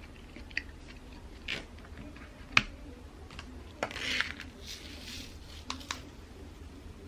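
Scattered small clicks and taps from small objects being handled on a table, with some soft rustling; one sharper tap about two and a half seconds in.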